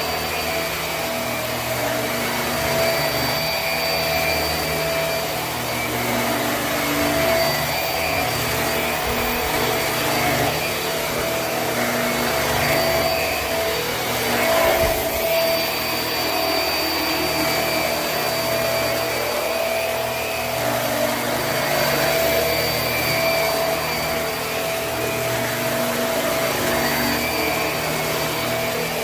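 Hoover High Performance Swivel upright vacuum running steadily with a constant motor whine, its sound rising and falling slightly as it is pushed over carpet; a brief knock about halfway through.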